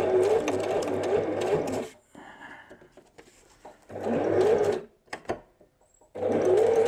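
Electric sewing machine stitching through a fabric pouch in three short runs, the motor pitch rising as each run starts, with a couple of light clicks in the second pause. The stop-start stitching is the backward-and-forward lock stitch that secures the seam end so it doesn't come undone.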